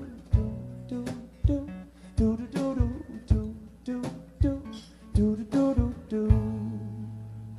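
Acoustic guitar strummed in a steady rhythm, ending on a final chord about six seconds in that is left ringing.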